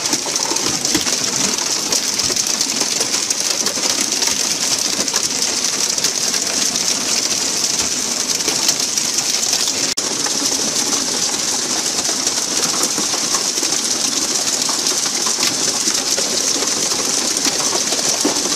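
Steady rushing hiss of water spray and wind around a pole-and-line tuna fishing boat at sea, broken by a brief drop about halfway through.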